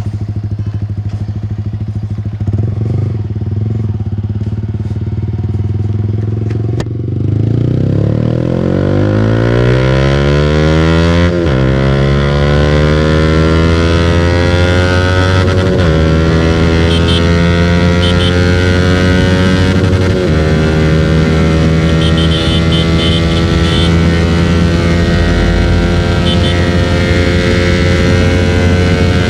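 Yamaha motorcycle with an SC-Project aftermarket exhaust, idling steadily for several seconds, then pulling away and accelerating, its exhaust note climbing in pitch through the gears with short dips at three upshifts before settling into a steady, slowly rising run.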